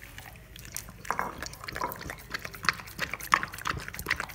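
A black Labrador retriever lapping milky tea from a plate: quick, wet, irregular laps starting about a second in.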